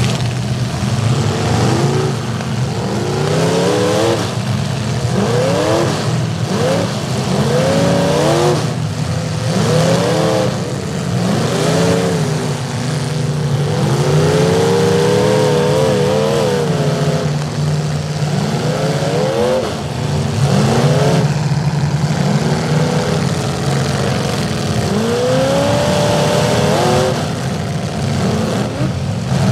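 Several demolition derby pickup truck engines revving hard at once, their pitch rising in repeated sweeps as the trucks shove and ram, with occasional bangs of metal hitting metal.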